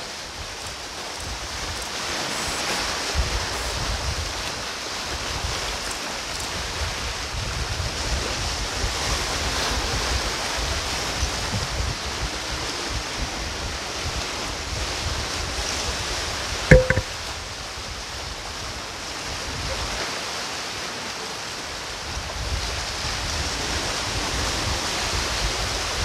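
Sea waves washing steadily against the shore, a continuous surf hiss with some wind on the microphone. A single short, sharp knock sounds about seventeen seconds in.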